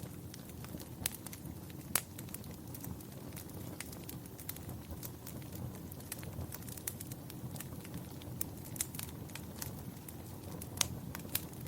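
Wood fire crackling in a fireplace: a steady low rumble of flames with scattered sharp pops, a louder pop about two seconds in and another near the end.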